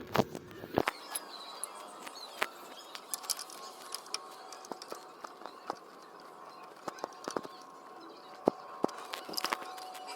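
Scattered light clicks and taps of metal parts being handled, as new brake pads are fitted into a scooter's front disc brake caliper.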